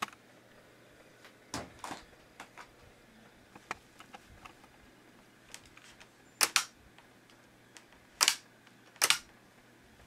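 A series of short, sharp clicks. The loudest come in close pairs, three of them in the second half, about two seconds and then about a second apart.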